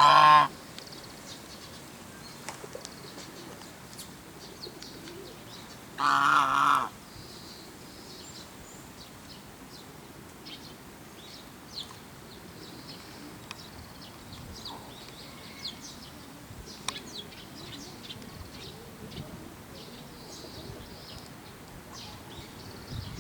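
Chinese goose honking: a short, loud honk right at the start and another, just under a second long, about six seconds in. Between them there are only faint, scattered short chirps and ticks.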